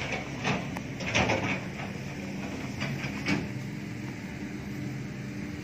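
An engine running steadily at idle, with a few short scuffing or knocking noises over it in the first part.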